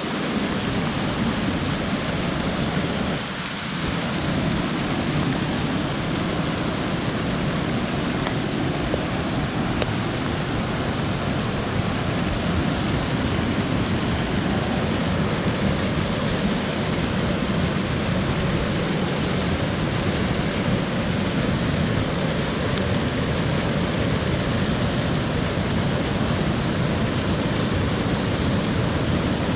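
Rushing water of a rain-swollen mountain stream, a steady dense noise with a brief dip about three seconds in.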